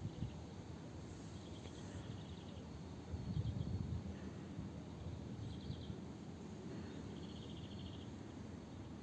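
Insects chirping in short, rapid high trills, several times, over faint outdoor background noise, with a brief low rumble about three seconds in.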